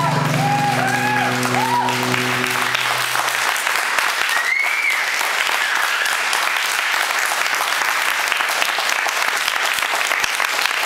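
Audience applauding, with a whistle about four and a half seconds in. A low steady drone from the electronic setup stops about three seconds in.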